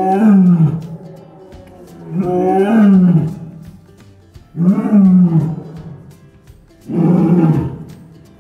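A lioness roaring: four loud, drawn-out calls about two seconds apart, each rising and then falling in pitch.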